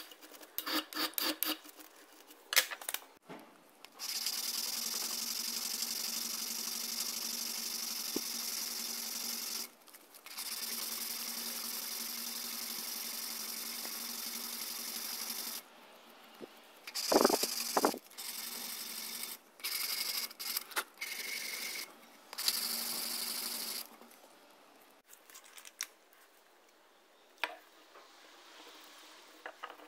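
Small electric power tool running in several runs of a few seconds each, with a steady high whine, switched off and on between runs, with handling clicks in the gaps.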